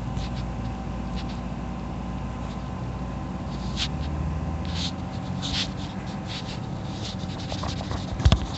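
Steady low machine hum with a couple of thin steady tones over it, broken by short scratchy rustles, and a sharp knock near the end.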